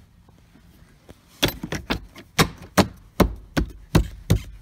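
A run of sharp plastic knocks, about two or three a second, beginning about a second and a half in: a hand tapping the Perigon mirror camera into place on a Ford Explorer side mirror.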